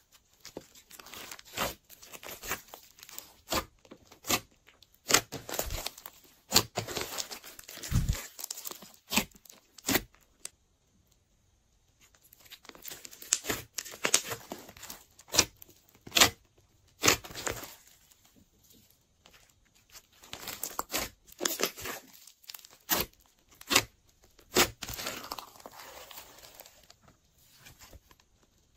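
Hands squeezing, stretching and folding a large lump of glossy slime: irregular sticky crackles and sharp pops, with a second or so of silence about ten seconds in.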